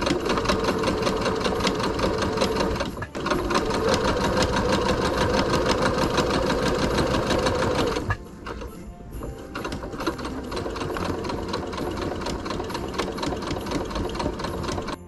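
Electric domestic sewing machine stitching fabric at speed, a fast even run of needle strokes with a brief pause about three seconds in. After about eight seconds it runs more quietly and unevenly as the fabric is turned and stitched more slowly.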